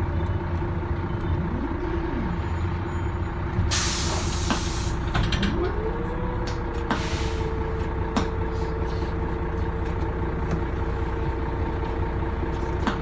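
Interior sound of a Volvo B12M city bus, with its Volvo DH12 six-cylinder turbo diesel and ZF automatic gearbox running underneath as a low, steady rumble. A whine rises and falls near two seconds in. A loud burst of air-brake hiss comes about four seconds in, and a shorter hiss of air about seven seconds in, followed by a steady tone.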